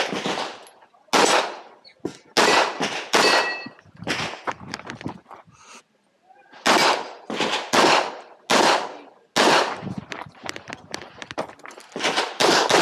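Semi-automatic pistol fired over and over in quick strings, the shots often coming in pairs about half a second apart, with a short lull about six seconds in.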